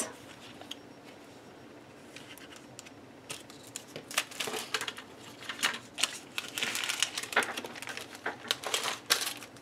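Clear plastic packaging bag crinkling as it is handled, in irregular crackles that start about three seconds in.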